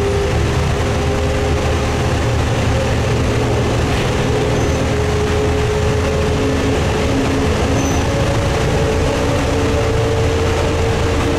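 1990 Ikarus 260.50 bus running steadily: a deep diesel drone with a whining tone that drifts slightly up and down in pitch.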